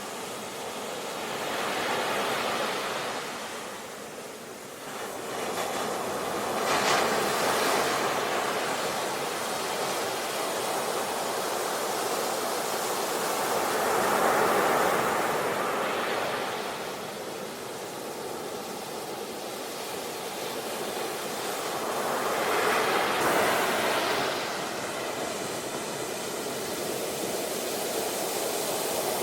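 Sea waves breaking and washing up the shore, the surf swelling and fading with a new wave about every five to eight seconds.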